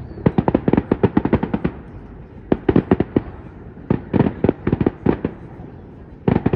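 Fireworks exploding in rapid volleys of sharp cracks, four clusters separated by short pauses.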